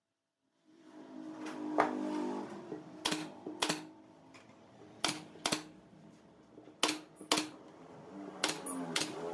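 Pneumatic brad nailer firing brads into pine finials, a series of sharp clicks, mostly in quick pairs about half a second apart.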